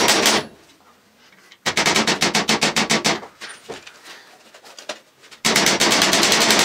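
A hammer taps small nails into a wooden slat on a board in quick, even blows. It goes in three runs: one at the start, a second from about two seconds in, and a third near the end, with quieter pauses between them.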